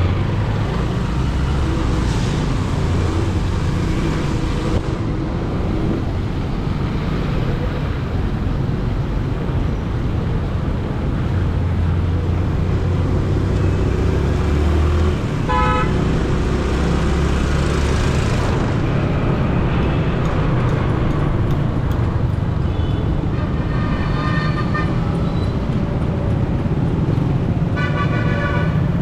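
Road traffic with vehicle engines running in a steady low rumble, and horns honking: a short toot about halfway through, then a longer honk and another toot near the end.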